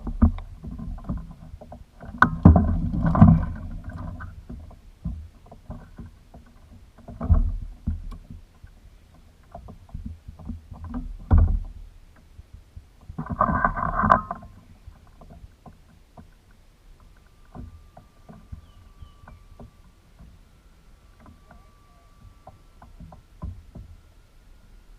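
Irregular knocks and thumps in a small boat, with a few louder bumps and shuffles at several points.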